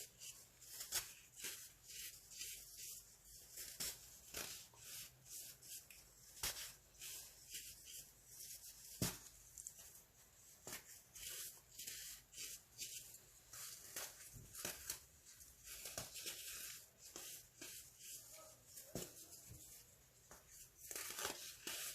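Baking soda crunching as it is crushed: an irregular run of dry crackles and crunches, several a second, with a few sharper cracks, the strongest about nine seconds in.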